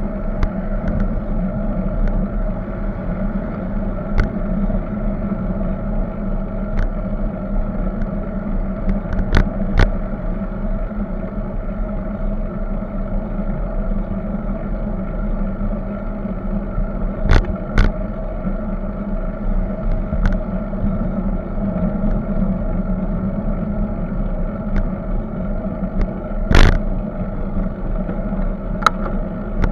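Steady wind and road rumble on a bicycle-mounted camera riding along a road beside car traffic. A few sharp clicks and knocks stand out, the loudest about three-quarters of the way through, with several more near the end.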